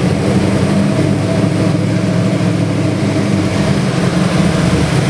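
Chevrolet 572 cubic-inch big-block V8 with electronic fuel injection, running at a steady idle.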